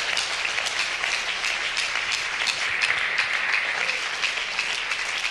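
Crowd applauding steadily with many hands clapping.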